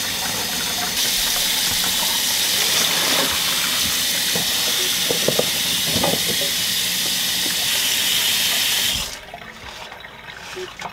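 Kitchen tap running into a stainless steel sink, splashing over fresh produce being rinsed: strawberries in a colander, then asparagus in a plastic tub. The flow shuts off abruptly about nine seconds in, leaving a few light handling knocks.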